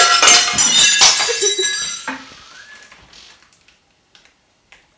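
A red glass antique vessel shattering: a loud crash followed by about two seconds of shards clinking and tinkling.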